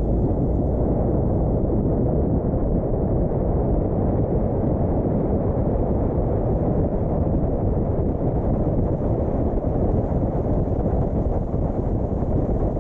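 Wind rumbling over the microphone of a camera on a moving car, with the car's road noise beneath: a steady low rumble.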